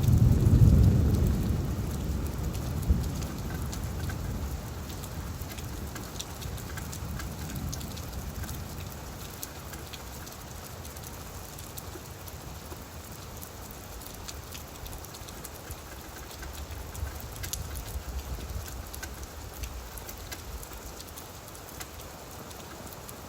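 Steady rain falling on leaves, a constant hiss with many small drop ticks. A low rumble of thunder peaks about a second in and slowly dies away, with a fainter swell later on.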